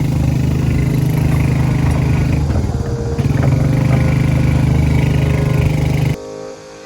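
An engine running steadily, with a low pitched drone, that cuts off suddenly about six seconds in as music begins.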